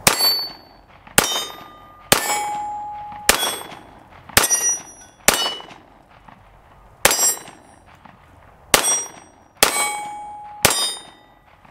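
Ten shots from a PSA 5.7 Rock pistol in 5.7×28 mm, fired about one a second with a short pause midway. Several shots are followed by a brief metallic ring.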